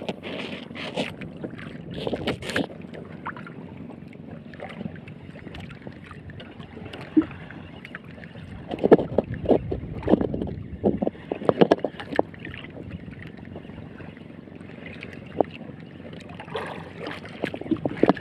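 Water slapping against a small wooden outrigger boat's hull, with wind on the microphone and scattered knocks and clatter in clusters near the start, around the middle and near the end.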